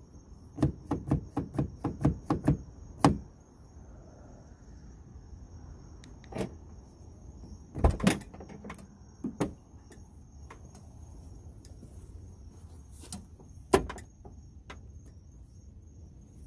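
Car door latch mechanism, a Durango-type latch fitted to the door, clicking repeatedly as it is worked: a quick run of about eight sharp clicks in the first three seconds, then single clicks and knocks now and then.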